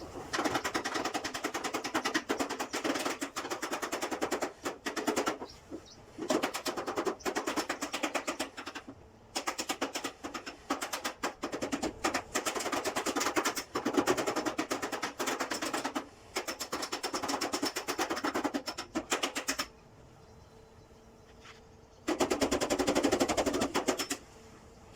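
A power tool rattling in bursts of a few seconds with short pauses, each burst a rapid, even train of strokes, while a door panel is being repaired.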